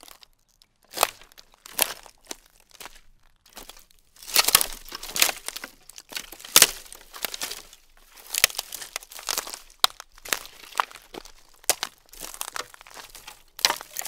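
Dry wooden sticks and twigs cracking and crunching underfoot, in irregular clusters of sharp snaps that grow busier about four seconds in.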